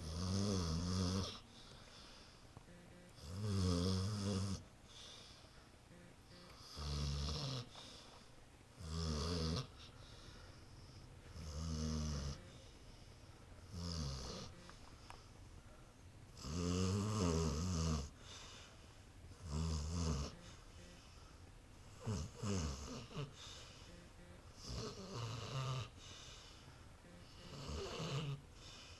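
A sleeping dog snoring in a steady rhythm. About eleven low, buzzing snores of roughly a second each come one every two to three seconds.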